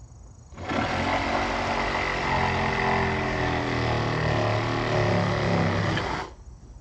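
BAUER 20V cordless reciprocating saw running under power. It starts under a second in, runs steadily for about five and a half seconds with its pitch shifting slightly, and stops near the end.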